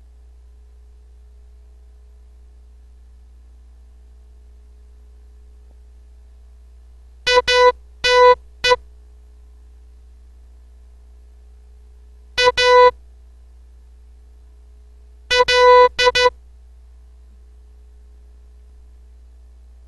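Morse code played as a keyed electronic beep on one steady mid pitch: three short groups of dots and dashes about 7, 12 and 15 seconds in, with long pauses between them. These are test characters sent for the listener to decode. A faint low hum runs underneath.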